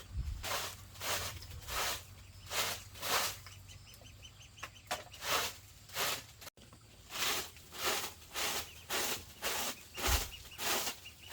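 Footsteps walking steadily over dry, crunchy ground, about two steps a second, pausing briefly near the middle. A short rapid run of high chirps comes about halfway through.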